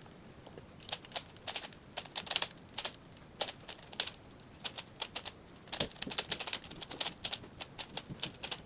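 Plastic 5x5 Rubik's cube being turned by hand: rapid, irregular clicks and clacks of its layers turning and snapping into place. The clicking starts about a second in.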